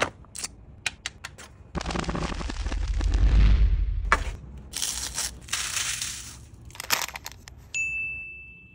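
Sharp cracks and crunching noises of candy packaging and candy being handled, with a loud rushing swell with a deep low end about two to four seconds in. Near the end a bright steady chime rings out, a sound effect for the pop-up lightbulb graphic.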